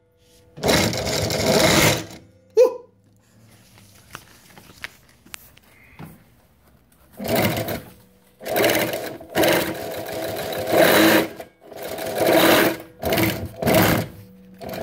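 New-Tech GC-0303 walking-foot industrial sewing machine with servo motor, stitching through thick layered material at high speed. It runs in several loud bursts of one to three seconds, with short pauses between them and a sharp click about two and a half seconds in.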